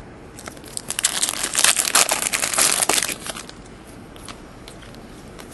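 Foil wrapper of a Bowman Chrome baseball card pack crinkling and tearing as it is opened by hand: a dense crackle lasting about three seconds, then a few quieter handling clicks.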